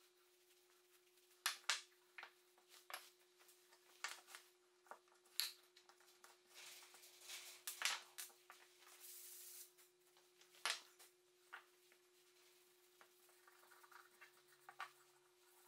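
Faint taps and knocks of small wooden pen boxes being handled and set down on a workbench, with a few seconds of soft rag rubbing near the middle as oil finish is wiped on. A thin steady hum runs underneath.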